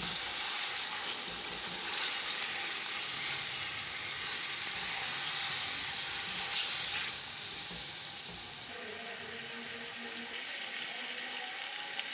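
Chicken pieces sizzling as they fry in hot ghee in a kadai, with a spatula stirring them at first. The sizzle eases a little about eight seconds in.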